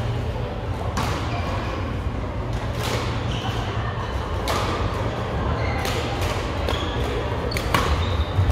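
Badminton rackets striking the shuttlecock in a rally, about five sharp hits spaced a second and a half to two seconds apart, each echoing in a large hall.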